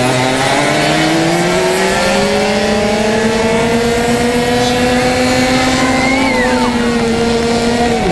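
Racing kart engine at full throttle on a straight, its note climbing steadily over the first few seconds and then holding high. A second kart's engine note rises and then falls away between about five and seven seconds in. Right at the end the pitch drops sharply as the throttle is lifted.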